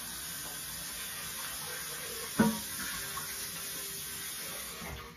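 Tap water running steadily as a blender jar is rinsed out in the sink, with one sharp knock about halfway through. The water stops just before the end.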